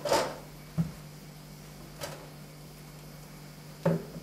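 Fridge vegetables being handled: a short scrape from the plastic crisper drawer at the start, then a few light knocks, the sharpest near the end as a carrot is set down on a wooden worktop. A faint steady low hum runs underneath.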